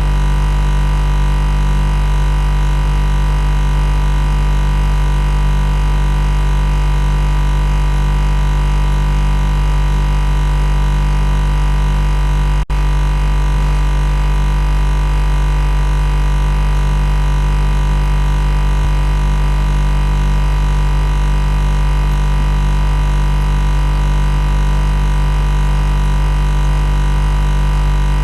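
Loud, steady machine buzz: a low, unchanging drone with many overtones. It breaks off for an instant about halfway through and carries straight on.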